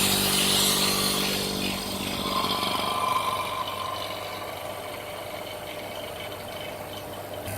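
OCA screen-lamination machine and its external vacuum pump running at the start of a lamination cycle. A steady motor hum dies away about two seconds in, and a quieter steady running sound with a brief higher tone follows as the cycle goes on.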